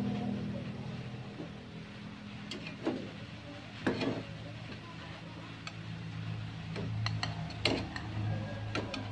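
A steel spatula clicking and scraping against a nonstick frying pan as pancakes are lifted and flipped: a few sharp clicks, one around three seconds in, one around four seconds, and two near the end, over a low steady hum.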